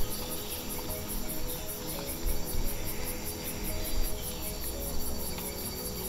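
Rainforest insects chirping in a fast, even, very high-pitched pulse of about five beats a second, with a few light knocks along the way.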